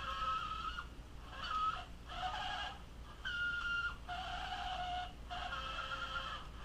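Toy remote-control car's electric drive motor and gears whining in short runs of half a second to a second and a half, stopping and starting about six times, with the pitch jumping between a higher and a lower whine from run to run.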